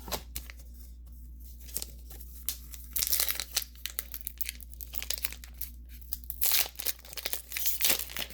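Foil booster-pack wrapper being torn open and crinkled by hand, in irregular crackly bursts, loudest about three seconds in and again near the end.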